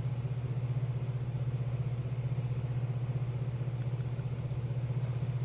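Steady low machine hum with a fast, even pulsing.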